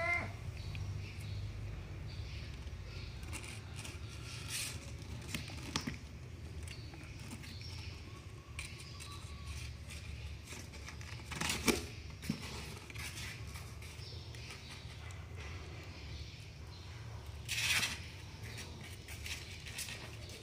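Kittens scrambling inside a cardboard box, their claws scratching and rustling on the cardboard and the cloths in scattered bursts. The loudest bursts come about halfway through and again near the end. A short kitten mew is heard at the very start.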